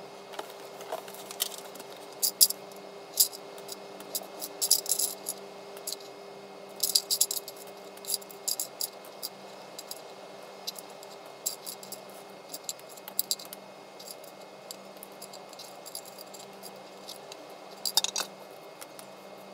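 Small hard plastic model-kit parts clicking and rattling as they are handled, picked out of a clear plastic case and pressed together: scattered sharp clicks and short rattling clusters, with a dense cluster near the end.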